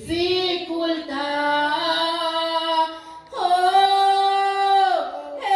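A woman singing a Spanish worship song solo into a microphone. She holds one long note that steps up in pitch partway through, breathes briefly about three seconds in, then holds a second, higher note.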